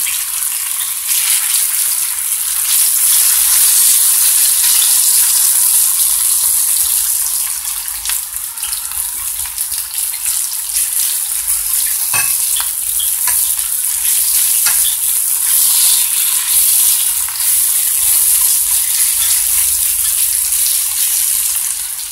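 Diced potatoes and onion sizzling steadily in oil in a large frying pan over high heat, with a spatula stirring through them at the start and a few small pops and clicks along the way.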